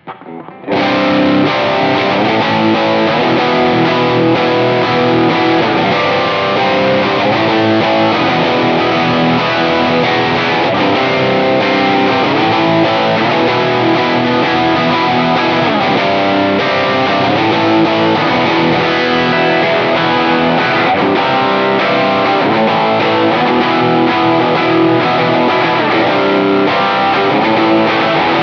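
Electric guitar played through a King of Tone-style dual overdrive with both sides stacked at high gain, into a clean Kemper amp profile. Dense, saturated distorted chords ring on with sustain, starting within the first second.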